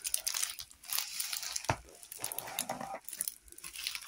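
Crinkled white plastic parcel wrapping crinkling and rustling in irregular bursts as it is handled.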